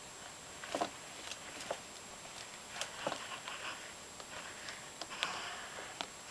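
Scattered light taps and short scratchy rustles as a fingertip prods the sand substrate in a plastic tub enclosure, coming at irregular moments a second or so apart.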